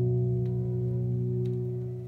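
A gently psychedelic 1968 pop single playing from a 7-inch vinyl record on a turntable: a held chord that starts to fade near the end, with a couple of faint clicks.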